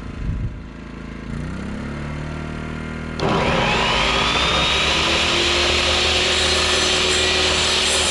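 A small portable generator running, its engine picking up speed about a second in. About three seconds in an electric saw switches on, its whine climbing in pitch as the blade comes up to speed, then running steady off the generator.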